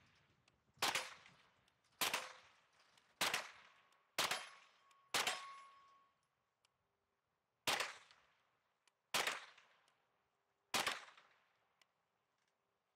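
Smith & Wesson FPC folding pistol carbine firing eight aimed shots: five about a second apart, a pause, then three more about a second and a half apart. Some shots are followed by a short ringing tone from a hit steel plate.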